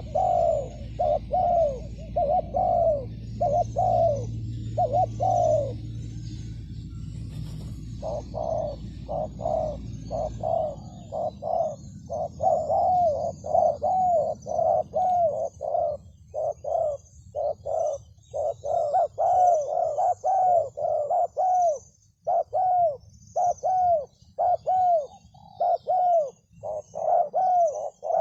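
Spotted doves cooing in fast runs of short, arched notes, about two a second, with a pause about six seconds in and overlapping calls later on. Small birds chirp faintly and high throughout, and a low rumble lasts through the first ten seconds.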